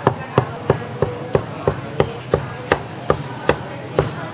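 Cleaver chopping roast meat on a chopping board in a steady run of sharp chops, about three a second.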